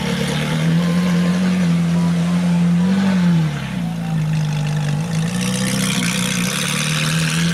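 Ferrari 458 Italia's V8 engine running steadily at idle, with a brief light rev about three seconds in that falls straight back to idle.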